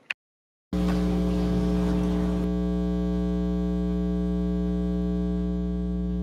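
A short click and a moment of dead silence, then a keyboard instrument comes in abruptly holding one steady, organ-like sustained chord, with a noisy rush over its first two seconds.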